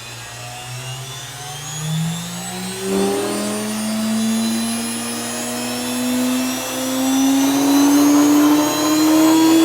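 Electric motor salvaged from a vacuum cleaner spinning a blank CD up to speed, its whine rising steadily in pitch and growing louder as the disc approaches the point of shattering.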